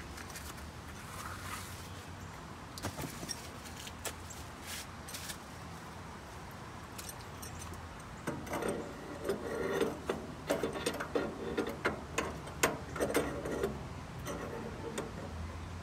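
A metal gas-grill burner tube clinks and rattles against the firebox and bracket as it is set in place. The clatter comes in a run of sharp clinks in the second half.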